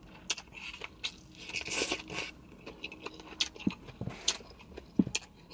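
A person chewing a mouthful of stir-fried noodles close to the microphone: wet mouth clicks and smacks, with a louder stretch of noise about two seconds in.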